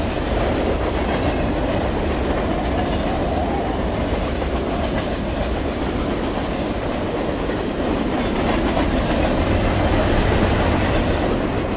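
Passenger train running along the track: a steady rumble and clatter of the wheels, swelling slightly near the end.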